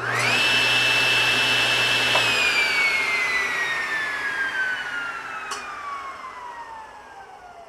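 SawStop CNS175 contractor table saw's 1¾ hp motor and blade starting at the pull of the paddle switch: a whine rises within a fraction of a second and runs steady with a low hum for about two seconds. The saw is then switched off and the blade winds down with a slowly falling whine. A sharp click comes about two-thirds of the way through.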